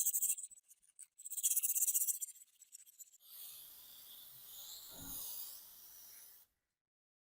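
Fast, repeated scratching strokes of hand abrasive scrubbing on a rusty metal part, then a steady hiss about three seconds in that cuts off suddenly.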